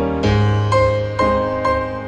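Background music led by piano, notes struck about twice a second over a held bass note.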